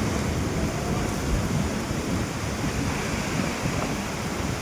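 Heavy rain falling, a steady even rush of noise.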